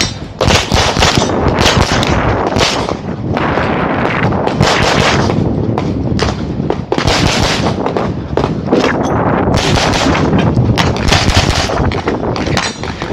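Rapid 9mm pistol fire from a CZ Shadow 2 shooting 147-grain loads: loud shots in fast strings, with short pauses between the strings.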